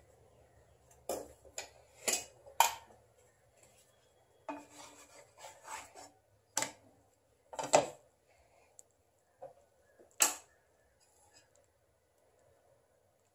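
Flat wooden spatula scraping and knocking against a nonstick tawa as a roti is lifted and turned: a string of short, sharp scrapes and taps, the loudest about two and a half, seven and a half and ten seconds in, then the pan goes quiet.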